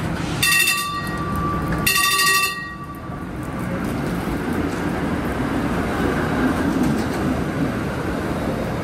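PCC streetcar sounding two short signal tones, each under a second and about a second and a half apart, then pulling away from the stop with a steady running noise of the car on its rails.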